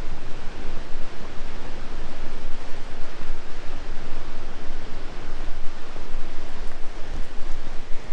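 Rushing river water in a gorge: a steady, loud, even rush.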